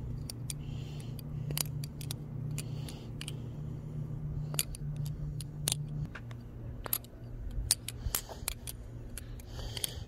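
BBBarfly butterfly knife being flipped in one hand: irregular sharp metallic clicks as the handles swing open and shut and snap together around the blade. A steady low hum runs behind, and part of it drops away about six seconds in.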